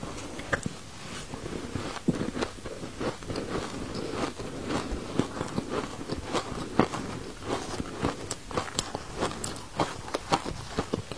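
A person crunching and chewing chunks of ice, close to the microphone: many irregular, crisp crunches.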